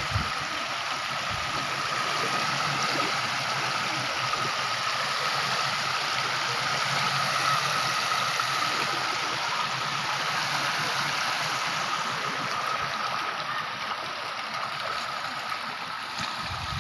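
Floodwater from an overflowing river flowing and gurgling in a steady rush, with a faint steady high tone running through it.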